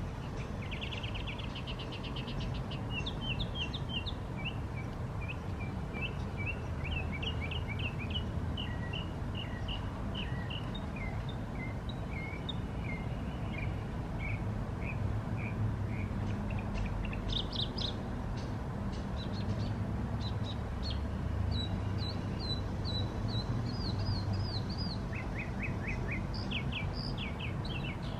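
Small birds chirping: many short high chirps with a few rapid trills, one about a second in and more near the end, over a steady low background rumble.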